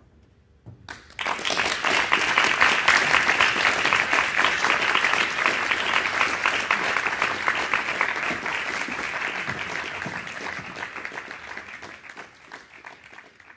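Audience applauding: the clapping breaks out about a second in, swells quickly and then slowly thins and fades near the end.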